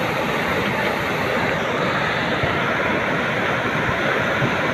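Rushing floodwater: a torrent of muddy rainwater churning and splashing as it pours out from under the ghat steps, a steady dense roar of water.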